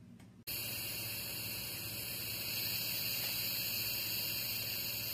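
A steady hiss cuts in suddenly about half a second in and holds at an even level, strongest in the high range.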